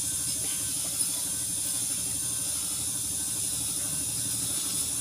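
Small electric motor of a homemade bench grinder running steadily, its abrasive wheel grinding down a small rubber bushing held against it: a constant hiss over a low hum.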